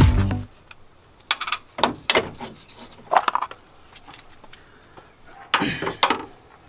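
Scattered metal clicks and clunks as the bolts and the metal spark-plug cover plate are taken off the valve cover of a Honda B16A2 engine, the longest and loudest clunk about five and a half seconds in. Music cuts off in the first half second.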